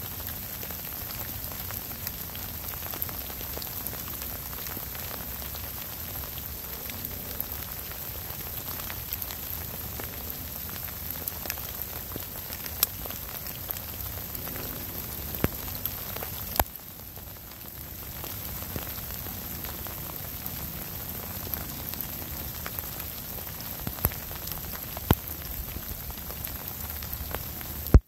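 Steady rain falling, with scattered sharp ticks of drops landing close by. About halfway through it suddenly goes quieter for a second or so, then comes back.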